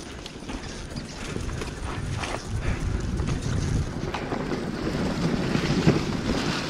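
Dirt bike engine running at low revs while the bike picks its way along rough forest singletrack, getting louder from about two seconds in, with a few sharp knocks and rattles from the bike over the rough trail.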